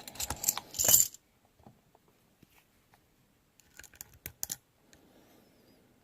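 Metal key and padlock clinking in the hand for about a second, then near quiet, then a short run of sharp metallic clicks about four seconds in.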